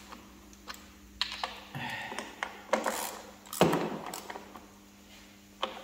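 Hand ratchet with a 10 mm socket driving in screws under a car's bonnet: irregular ratchet clicks and metal clinks, the loudest knock about three and a half seconds in.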